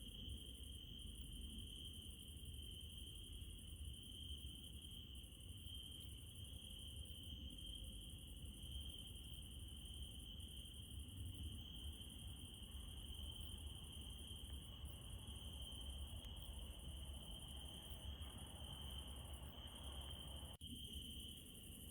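Night insects trilling in one steady, unbroken high-pitched note, over a low steady rumble; the sound dips briefly near the end.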